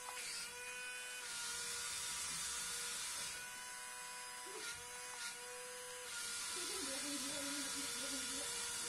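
Suction fan and drive motors of a Cruzer Speed Fury RC wall-climbing toy car running on the ceiling: a faint, steady electric whine with an airy hiss that swells and fades a few times as the car is driven.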